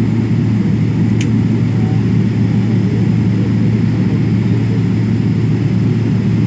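Steady low rumble of a jet airliner taxiing after landing, heard inside the passenger cabin, with one faint click about a second in.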